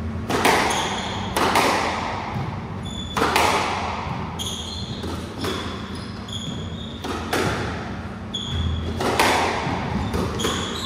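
Squash rally: the ball cracks off rackets and walls about once every one to two seconds, each hit ringing in the enclosed court, with short squeaks of court shoes on the wooden floor between the shots.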